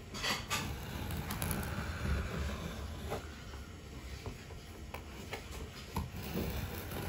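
Scissors cutting slowly into a boxed trading-card deck's packaging in small, careful snips: scattered light clicks over a low steady hum.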